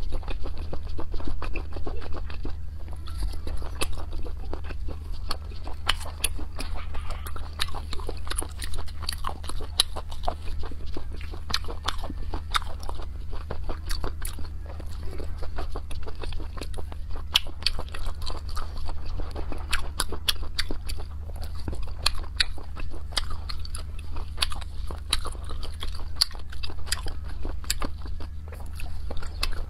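Close-miked chewing and biting of sea snails in chili sauce: many sharp clicks and wet smacking mouth sounds, over a steady low hum.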